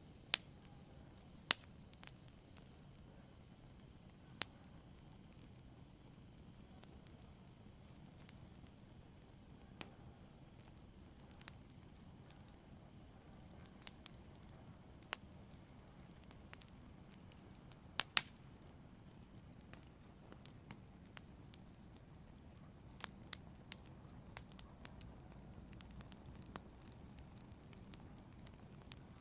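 Wood logs burning in a fireplace: a low steady hiss of the flames with scattered sharp crackles and pops, the loudest about a second and a half in and around eighteen seconds in, and a cluster of pops near the end.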